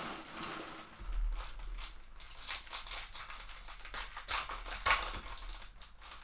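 Trading cards and their paper and cardboard packaging being handled on a table: rustling and crinkling with scattered clicks and taps.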